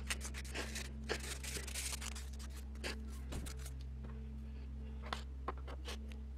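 Sandpaper rubbing on a 3D-printed plastic fidget-spinner frame in short hand strokes, mostly in the first two seconds, then a few light clicks as the parts are handled.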